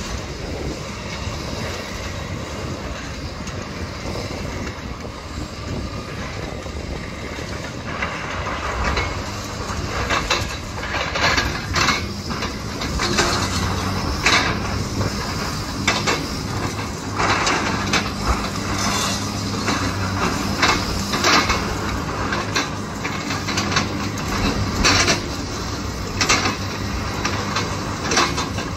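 Hydraulic excavators' diesel engines running steadily while a bucket digs into a pile of demolition rubble. From about eight seconds in, broken concrete and masonry clatter and scrape irregularly over the engine hum.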